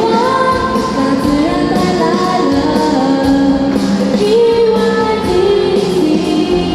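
Voices singing a song in unison over backing music with a steady beat.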